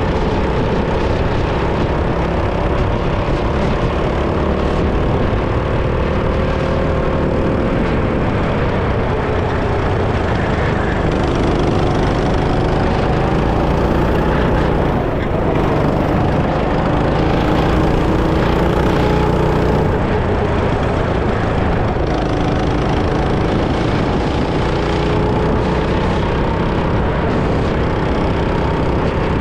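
Go-kart engine running hard, its pitch falling and rising again every few seconds as the kart slows for corners and accelerates out of them.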